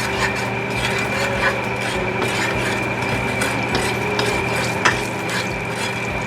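A utensil stirring and scraping food in a frying pan, with a few sharp clicks of the utensil against the pan, over a steady background hum.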